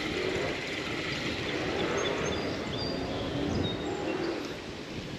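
Steady outdoor background noise with a few faint, short bird chirps.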